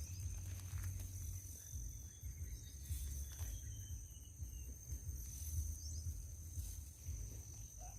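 Outdoor rural ambience: a steady high-pitched insect drone over a low rumble of wind on the microphone, with a few faint short chirps around the middle.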